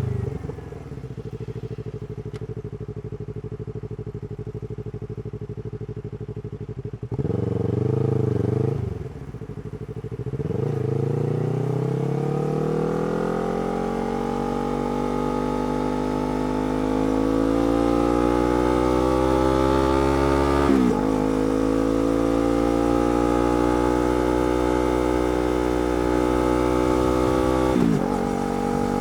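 Yamaha R3's parallel-twin engine with a slip-on exhaust idling, given a short blip of throttle, then pulling away and accelerating. The pitch climbs steadily, with a quick upshift about 21 seconds in and another near the end.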